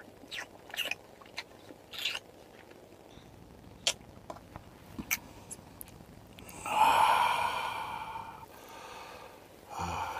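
Wet mouth clicks and smacks from a vampire-feeding act, lips and mouth working at a neck. About seven seconds in comes a longer, louder mouth sound lasting a couple of seconds, and another short one near the end.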